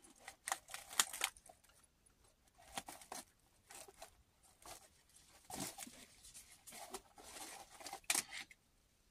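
A small hard-shell bag being unzipped and handled, its strap and contents pulled out: irregular scratchy rasps and rustles, with a sharp click near the end.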